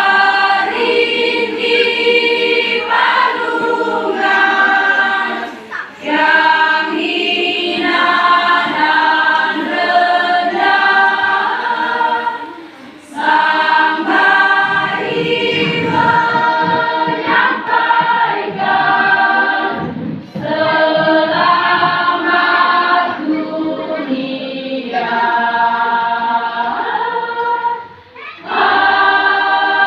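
Church choir singing in several voices, in long phrases with short breaks between them.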